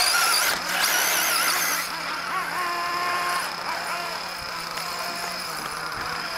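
Traxxas Slash 2WD short-course RC truck's electric motor giving a high whine that wavers in pitch as it is throttled away across the dirt. The whine comes in two spurts in the first two seconds, then fades as the truck gets farther off.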